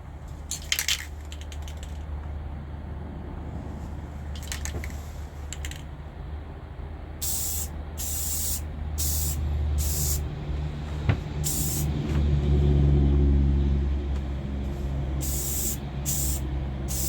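Rust-Oleum apple red aerosol spray paint can hissing in about eight short bursts, starting about seven seconds in, as a colour coat goes onto a model car body. A steady low rumble runs underneath.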